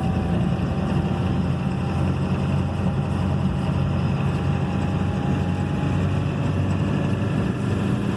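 Steady engine and road rumble of a truck being driven, heard from inside the cab.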